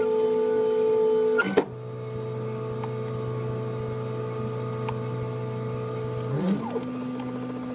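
Stepper motors of a CNC-converted milling machine whining as the axes drive a marker along the programmed toolpath in a dry run, with no cutting. The pitch holds steady, drops abruptly with a click about one and a half seconds in, and glides back up near the end as the axis speed changes. Underneath runs the steady noise of the driver box's cooling fan, which is pretty loud.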